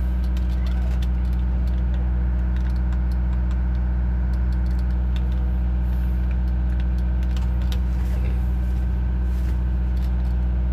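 Steady low machinery drone, a strong hum with many even overtones that holds unchanged throughout, with a few faint clicks.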